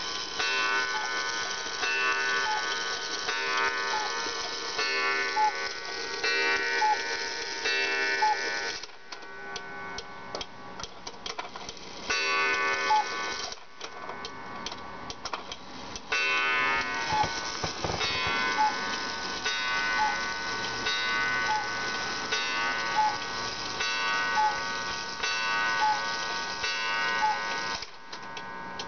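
Majak Russian A-frame cuckoo clock calling the hour, a cuckoo call that sounds off, as if drunk, repeated about every second and a half. The calling stops about nine seconds in, leaving the clock's ticking with clicks as the minute hand is turned by hand. It starts calling again a few seconds later and goes on until near the end.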